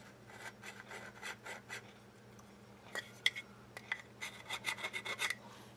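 Dial caliper being slid and set: the jaw runs along the steel beam, making faint scratchy rasping in a few short spells, the last one near the end denser than the rest.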